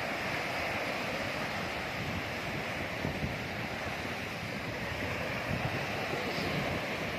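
Sea waves washing steadily onto a sandy beach, with wind buffeting the microphone in a low, fluttering rumble.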